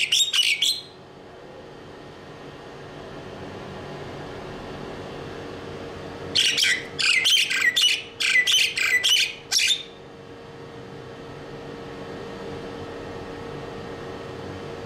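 Birds giving short, harsh squawking calls, many in quick succession: a brief burst right at the start, then a run lasting about three seconds in the middle, over a steady low hum.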